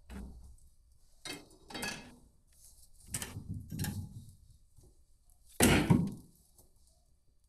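A series of about six knocks and thuds, irregularly spaced, the loudest a heavy thud about two-thirds of the way through.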